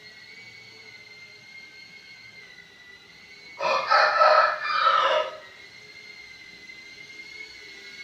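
A rooster crows once, about three and a half seconds in, in a long two-part call that is the loudest sound here. Under it runs the steady high whine of a cinewhoop drone's five-blade ducted propellers (Gemfan D51) spinning.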